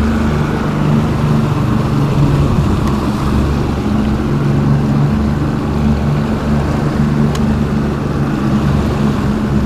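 Twin Mercury 75 outboard motors running steadily with the boat under way: a steady low hum over the rush of water and wind.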